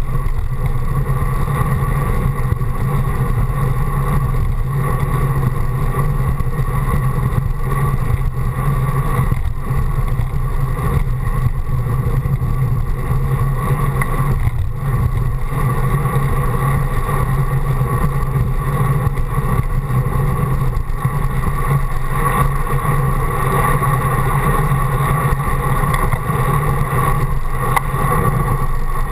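Steady wind rush and rumble on a handlebar-mounted camera's microphone from a bicycle riding at speed, with no breaks or changes.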